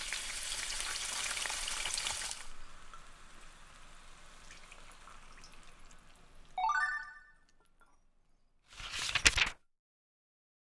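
Thin slices of beef sizzling in oil in a frying pan, loud for about two seconds, then a quieter hiss as sukiyaki sauce is poured over the ingredients in the pot. Near the end come a short rising pitched tone and a brief loud burst of noise.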